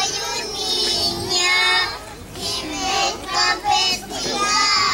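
Young children singing together in high voices, with a short pause about two seconds in.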